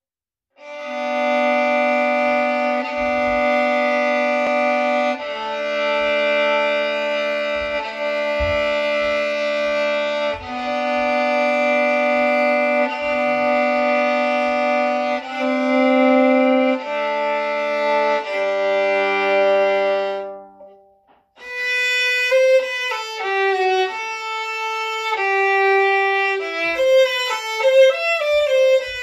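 Violin music: about twenty seconds of long, evenly held notes, a brief break, then a quicker passage of short, changing notes.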